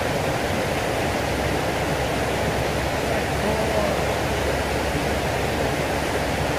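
Steady rush of water flowing along an irrigation canal.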